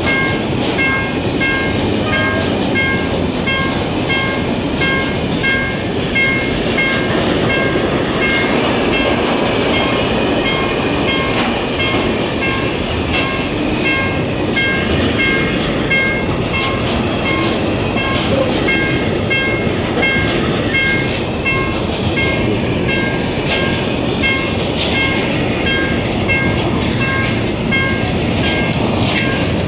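Freight train wagons rolling past a level crossing: a steady noise of steel wheels on rail with clicks and clatter over the joints. The crossing's warning bell rings throughout in an even beat of about two chimes a second.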